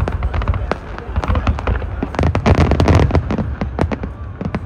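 Fireworks going off: a rapid, irregular string of bangs and crackles over a low rumble, densest about two to three seconds in.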